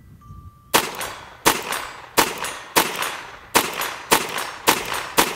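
Ruger 22 Charger .22 LR pistol firing eight quick shots, about two-thirds of a second apart, starting just under a second in. Each shot is followed by the ring of the steel target it hits.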